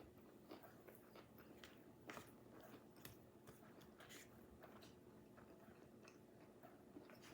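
Faint close-up chewing of a mouthful of rice noodles and vegetables, with small irregular mouth clicks over a faint steady hum.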